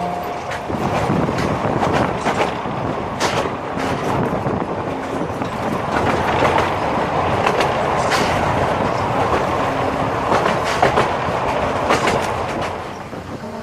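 Narrow-gauge railway carriage rolling along the track, its wheels clicking irregularly over the rail joints under a steady running noise that eases near the end.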